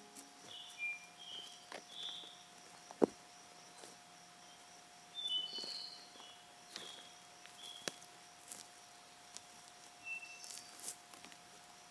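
Quiet forest ambience with short, scattered bird chirps and a few sharp clicks, the loudest about three seconds in, over a faint steady tone.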